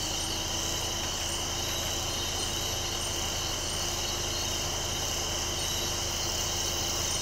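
Steady night chorus of crickets and other insects, over a low, even hum that fits an idling vehicle engine.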